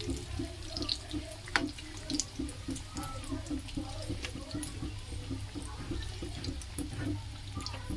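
Potato cutlets deep-frying in hot oil in a kadhai, the oil bubbling and crackling steadily. A sharp metal click about a second and a half in comes from the slotted spoon turning the cutlets against the pan.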